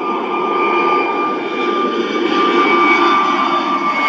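Airbus A320-family jet airliner climbing out after takeoff, its twin turbofan engines growing louder as it passes overhead. A steady high fan whine sits over the engine rumble, and a lower tone drops in pitch about three seconds in.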